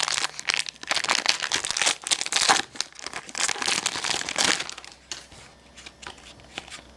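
Plastic crinkling and crackling as trading cards are handled and unwrapped. It is dense for about four and a half seconds, then thins to a few lighter clicks and rustles.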